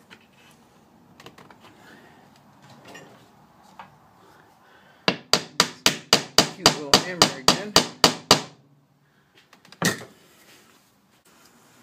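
Small metal-headed hammer tapping a glued wooden dowel peg into its hole in a wooden vise jaw. It comes as a quick run of about fifteen light strikes, about four a second, followed a little later by one single tap.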